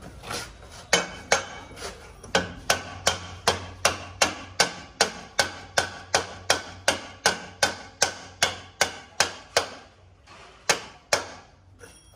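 A Royal Enfield Bullet's exhaust silencer is struck over and over to knock it onto the exhaust pipe, a ringing metal knocking at about three knocks a second. Near the end there is a pause, then two more knocks.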